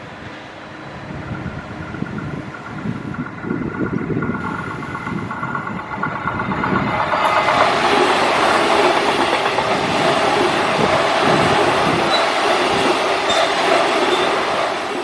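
Electric suburban passenger train passing close by, its wheel-and-rail noise building to a loud steady rumble about seven seconds in. A faint steady whine sits over it in the first half.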